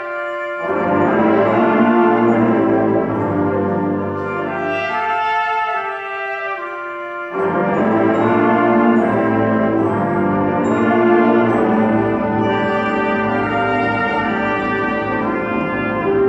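High school concert band playing, brass to the fore: held chords, with the full band coming in loudly about half a second in and again about seven seconds in after a lighter passage.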